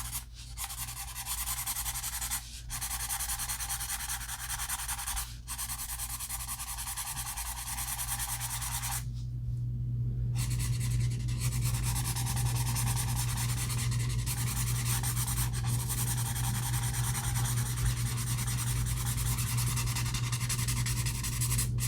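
Ohuhu alcohol marker tip rubbing across paper in continuous colouring strokes, with brief pauses a few times and a longer one about nine seconds in, over a low steady hum.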